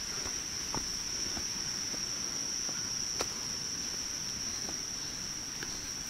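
Insects trilling steadily at one high pitch, with a few faint scattered clicks.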